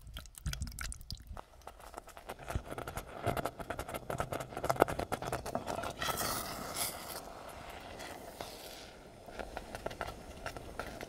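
Tinned spaghetti and sausages in tomato sauce bubbling in a saucepan: a thick, rapid popping and spluttering of bubbles, easing into a softer hiss after about six seconds.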